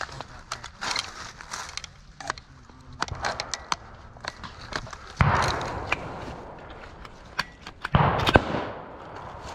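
Blank gunfire in a mock battle: a loud shot about five seconds in and two more close together near eight seconds, each followed by a rolling echo, with smaller sharp pops and clicks between them.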